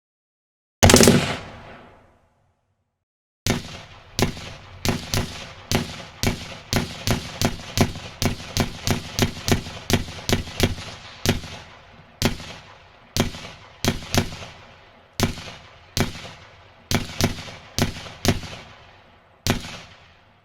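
M16 rifle (5.56 mm) firing: a tight burst of shots about a second in, then a long string of single shots, each with a ringing, echoing tail. The shots come about three a second in the middle and space out toward the end.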